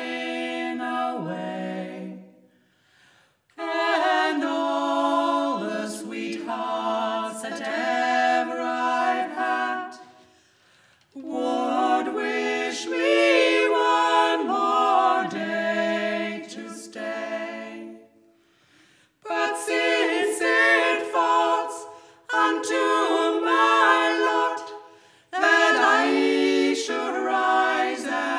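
A barbershop quartet singing a cappella in close harmony. The voices sing in long phrases with short breaks between them.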